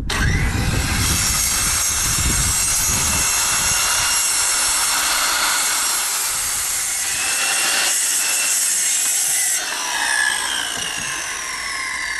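Handheld electric circular saw cutting through wood, starting abruptly and running steadily under load. Near the end the cut finishes and the blade winds down with a falling whine.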